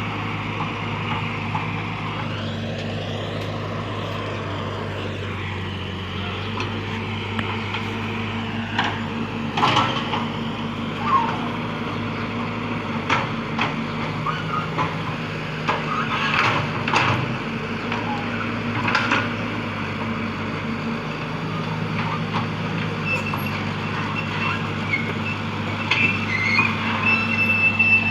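Excavator's diesel engine running steadily, with scattered metal clanks and knocks from about eight seconds in and a thin high squeal near the end.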